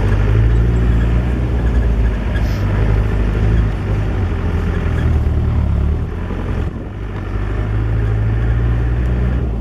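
Open safari game-viewing vehicle driving on a dirt track: engine running with a heavy, steady low rumble that eases somewhat about two-thirds of the way through.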